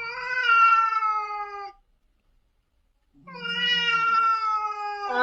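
Cat meowing: two long, drawn-out meows, each slightly falling in pitch, separated by a pause of a second or so.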